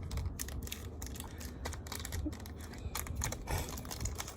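Small plastic blind-bag packets being handled and torn open: quick, irregular clicks and crackles of plastic wrappers and the little plastic miniatures inside.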